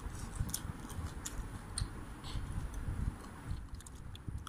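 A person chewing fish balls close to the microphone, with wet smacks and sharp little mouth clicks at irregular intervals.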